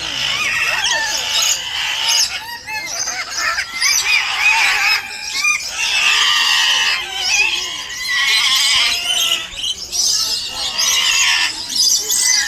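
A dense chorus of many aviary birds calling at once: overlapping short chirps, whistles and squawks, with no let-up.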